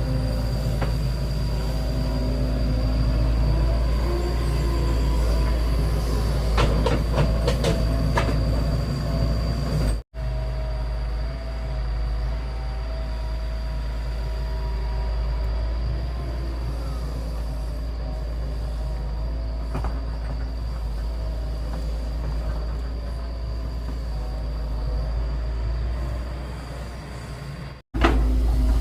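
Excavator's diesel engine running steadily under load, with a few metallic clanks about seven seconds in.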